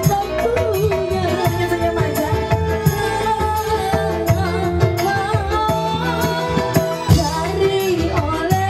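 Live dangdut song: a female singer singing a wavering melody into a microphone over a band of electronic keyboard, hand drums and bass.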